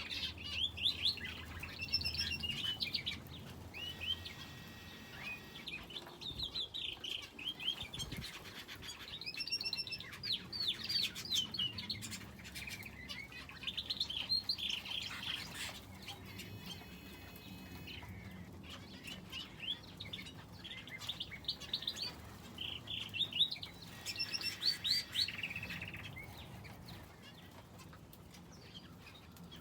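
Small aviary birds, finches and a canary, chirping in quick bursts of short high notes. The chirping dies away about 26 seconds in.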